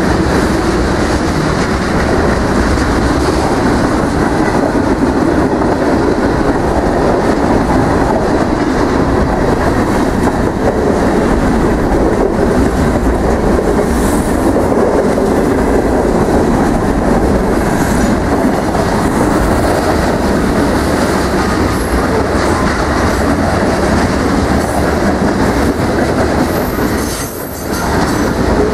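Covered hopper cars of a long freight train rolling past close by: a steady, loud rumble of wheels on the rails with clickety-clack from the trucks. The level dips briefly near the end.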